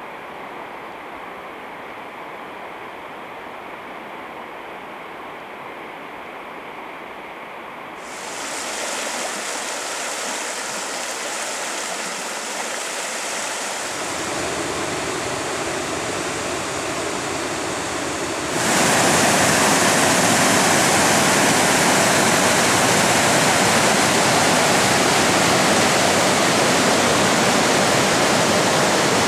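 River Tees rushing over rocky rapids: a steady, even rush of water. It jumps louder in sudden steps about eight seconds in and again about two-thirds of the way through, where it becomes a full, loud rush.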